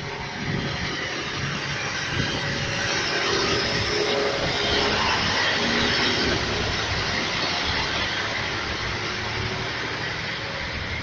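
A diesel locomotive passes close by hauling passenger coaches: its engine runs, then comes the steady rumble of coach wheels on the rails. It grows louder toward the middle and eases slightly near the end.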